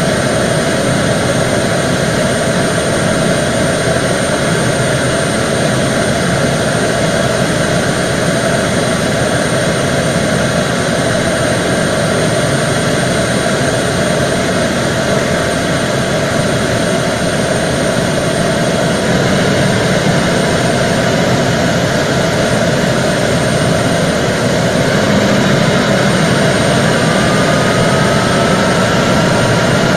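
Antonov An-12's four Ivchenko AI-20 turboprop engines running, a loud, steady drone with a high whine. Near the end a rising whine comes in and the level climbs slightly.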